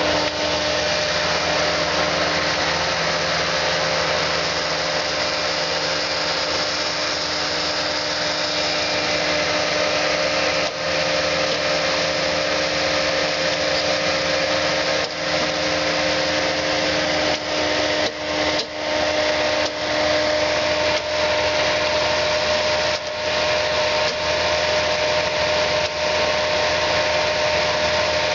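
Bobcat S630 skid-steer's diesel engine running steadily under load, with a steady hum and a higher steady whine, while it drives a CareTree tree spade; the noise dips briefly a few times.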